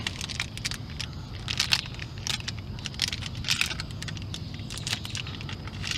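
Clear plastic bag crinkling in short, irregular rustles as a wheel bearing is handled inside it.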